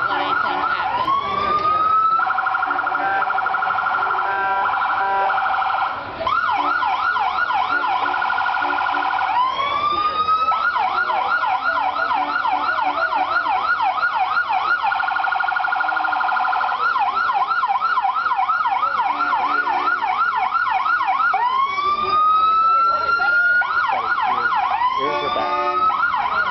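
Police car's electronic siren sounding loud, switching back and forth several times between a slow rising wail and a fast repeated yelp.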